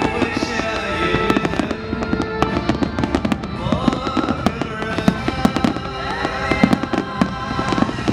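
Fireworks bursting in quick succession, many sharp bangs and crackles, over music playing alongside.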